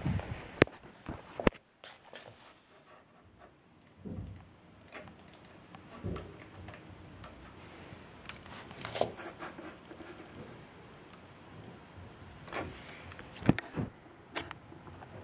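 Handling noise from a handheld camera carried about a room: scattered sharp clicks, two near the start and a loud one near the end, with softer knocks between.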